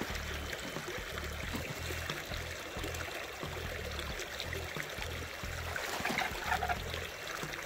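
Creek water running and trickling, over background music with a steady, pulsing bass beat.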